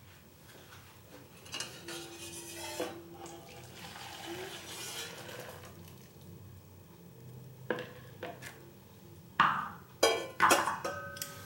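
Metal pots and utensils being handled: quiet knocking and scraping at first, then several sharp metallic clanks in the last few seconds, the last of them ringing briefly.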